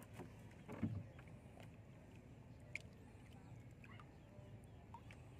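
Quiet handling of a nylon gill net aboard a small wooden outrigger canoe: one low knock against the hull about a second in, a sharp click near the three-second mark, and faint scattered ticks over a low steady hum.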